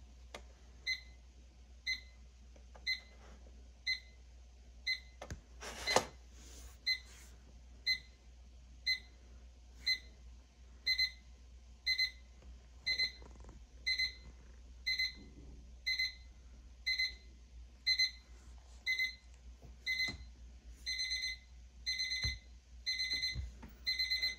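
Digital thermometer beeping about once a second with a high electronic tone. The beeps turn into double and then longer beeps and grow louder over the second half. A brief rustle comes about six seconds in.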